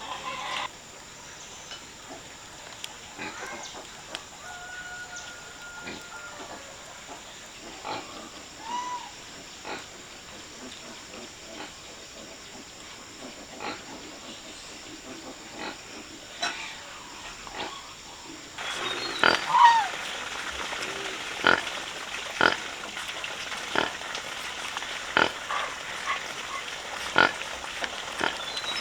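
Pigs grunting and calling in short, scattered sounds. The background gets louder about two-thirds of the way through, and the short calls come more often after that.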